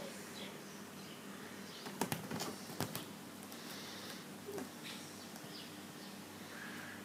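A short flurry of soft knocks and scuffs about two seconds in, a cat scrambling on a fabric sofa as it tussles with a toy ball. Faint high chirps sound in the background.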